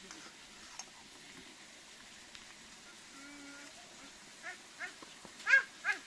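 Four short, high-pitched animal calls in quick succession near the end, the third the loudest, after a few seconds of faint background.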